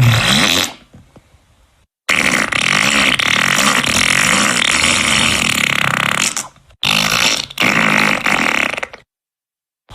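Fart sound effects played one after another: a short one at the start, a long drawn-out one lasting about four seconds, then two shorter ones close together, each separated by complete silence.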